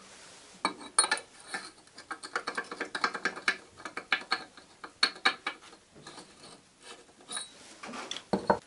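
Cast-iron IZh Jupiter-4 motorcycle cylinder being handled and set into a steel bench vise: a run of irregular metal clanks, clinks and scrapes, with the loudest knocks about a second in and near the end.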